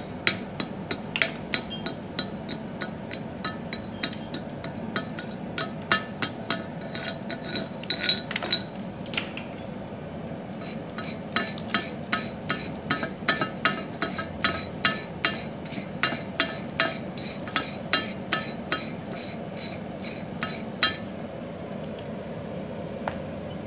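Slag being chipped off fresh stick-weld beads on a steel plate with a pointed chipping hammer: sharp metallic taps and clinks. After a short pause about ten seconds in, the beads are scrubbed with a steel wire brush in rapid strokes of about three a second, and the strokes stop a few seconds before the end.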